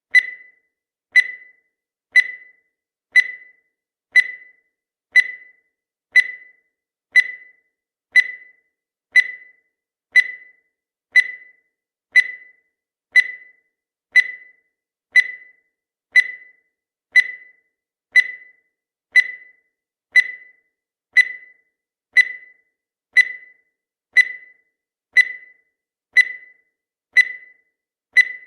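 Countdown timer sound effect: a short, high-pitched electronic beep once a second, each one fading quickly, marking the seconds as they count down.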